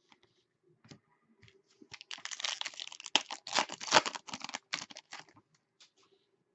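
Hockey trading cards and their packaging being handled: scattered clicks, then a dense run of rapid crinkling and clicking from about two seconds in to past five seconds.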